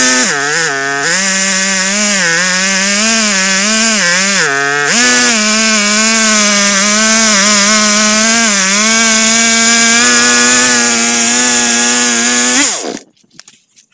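Two-stroke petrol chainsaw, mounted in a chainsaw-mill frame, running at full throttle while ripping lengthwise through a log to cut a slab. Its pitch sags and recovers several times under load during the first five seconds, then holds steady, and the sound cuts off near the end.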